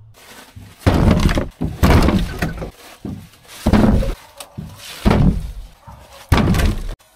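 Firewood rounds thunking and cracking: five heavy wooden knocks about a second and a half apart.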